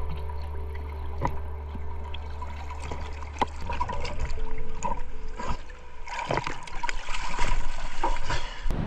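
Sea water sloshing and trickling around a freediver, with scattered sharp clicks. A low steady hum stops about halfway, and the water noise gets denser a little after that.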